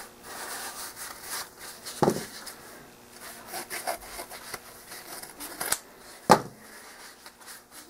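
Scissors cutting through a folded stack of paper towel, with the paper rustling as it is handled. A few sharper snips or knocks stand out, about two seconds in and again about six seconds in, the second one the loudest.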